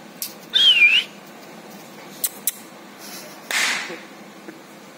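A person whistling once, a short wavering high whistle that dips and rises, calling the puppy. Two sharp clicks follow about two seconds in, then a short hiss.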